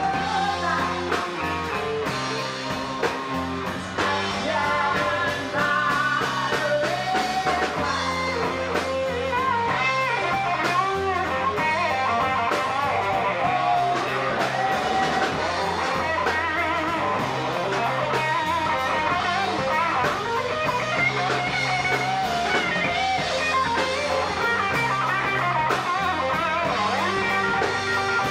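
Rock band playing live, electric guitar to the fore over bass, drums and keyboards.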